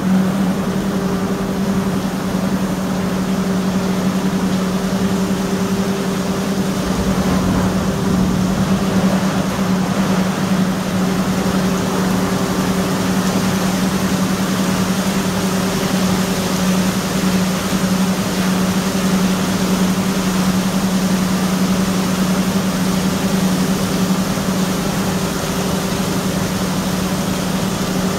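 A steady low machine hum at the ship lift. Water splashing and rushing grows louder from about halfway through.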